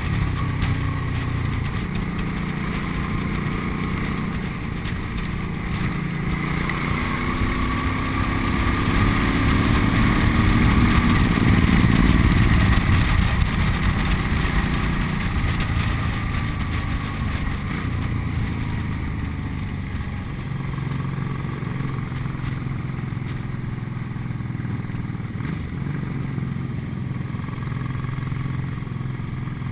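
Cruiser motorcycle engine running at road speed under a constant rush of wind and road noise. Around ten seconds in the engine pulls harder, rising in pitch and loudness, then eases back to a steady cruise.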